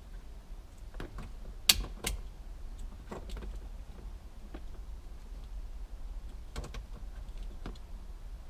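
Scattered sharp clicks and light knocks of plastic parts being handled: the multifunction switch and its wiring connector. One sharp click about two seconds in is the loudest, with a small group of clicks near the end.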